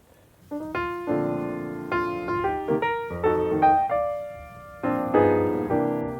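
Piano music starting about half a second in: single struck notes and chords, each one fading after it is played.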